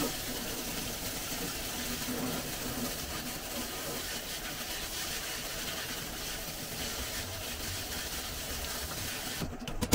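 Kitchen tap running steadily onto rice in a mesh strainer over a stainless steel sink, rinsing the rice; the water stops near the end.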